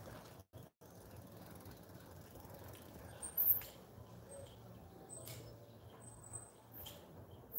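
Outdoor background noise: a steady low hum with a few short high chirps, and a brief sharp high-pitched sound about three and a half seconds in. The sound cuts out twice for a moment about half a second in.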